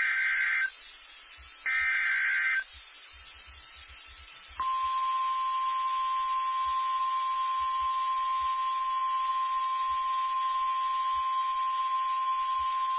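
NOAA Weather Radio emergency alert signalling. First come the last two of three SAME header bursts, each about a second of harsh, warbling digital data tones. After a pause of about two seconds, the steady 1050 Hz warning alarm tone begins, a single unwavering pitch that marks a warning-level alert, here a severe thunderstorm warning.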